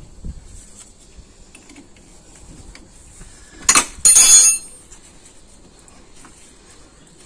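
Steel spanners clinking against a car's front brake caliper and its guide bolt as the bolt is worked loose. Light taps throughout, and two sharp metallic clanks with a ringing tail a little under four seconds in, the loudest sounds.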